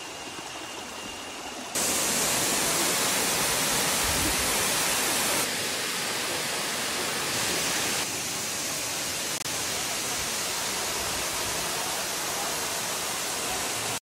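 Waterfall pouring into a pool: steady rushing water, fainter at first and much louder from about two seconds in, with a couple of abrupt shifts in level.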